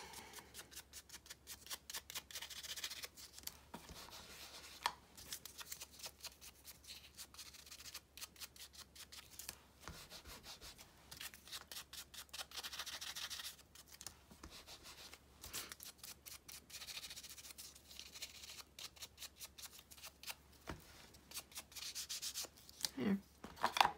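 Small round ink applicator rubbed in quick, short strokes around the edges of a small piece of paper, inking the edges: a dry, scratchy rubbing with brief pauses.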